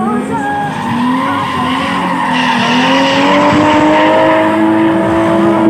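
Drift car sliding sideways: the engine is held high at full throttle with its pitch climbing steadily, and the tyres scrub and squeal as they spin in smoke.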